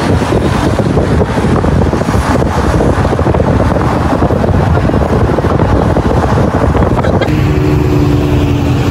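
Loud wind and road noise from a moving car. About seven seconds in, the rushing eases and a steady low hum comes through.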